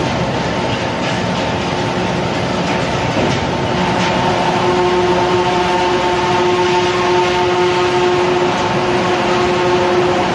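Twin-shaft shredder and its chain feed conveyor running while it chops forage grass: a loud, steady mechanical rumble and rattle. About four seconds in, a steady whine of several tones sets in over it.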